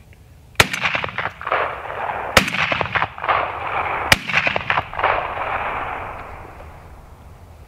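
Three shots from a Browning Maxus 12-gauge semi-automatic shotgun, fired about two seconds apart with 2¾-inch, 3-inch and 3½-inch shells in turn. Each report rolls away in a long echo, the last fading out about six seconds in.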